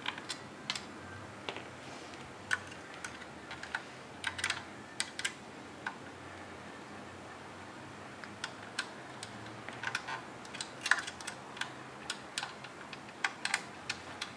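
Small irregular clicks and taps of a tool and screws on a paintball marker body as its screws are backed all the way out, coming in small clusters with short pauses between.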